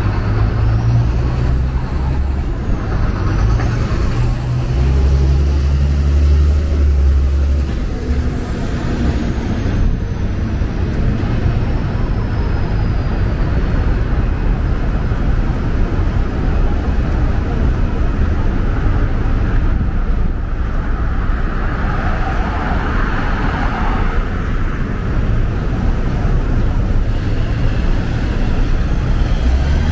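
City street traffic: motor vehicles running and passing close by. A deep engine rumble is strongest in the first several seconds. A thin high whine rises and then slowly falls away over roughly the first twelve seconds.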